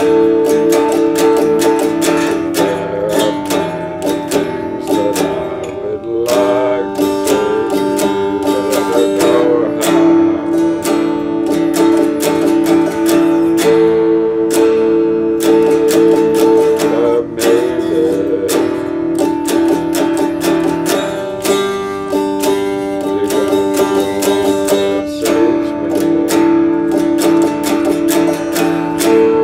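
A RockJam Stratocaster-style electric guitar played as quick strummed and picked chords. The chords ring on and change every few seconds.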